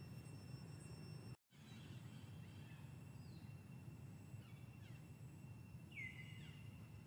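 Near silence: faint outdoor forest ambience, a steady low rumble with a thin steady high tone, a few faint bird chirps and one clearer short chirp about six seconds in. The sound cuts out completely for a moment about a second and a half in.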